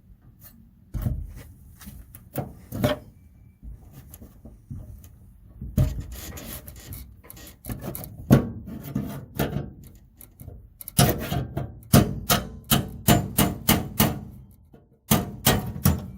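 Metal tools knocking and scraping on the car's steel torsion-bar bracket as it is worked free of its spot welds: irregular sharp knocks with rubbing and scraping between them, coming about two or three a second for a few seconds near the end.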